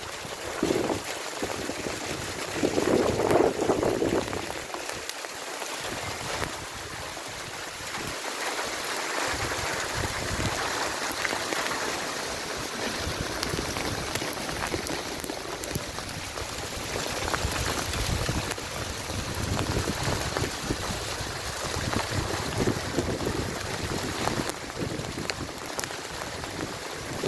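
Hail falling steadily on parked cars and the street: a dense hiss made up of many small clicks of hailstones striking. A short low rumble on the microphone about three seconds in.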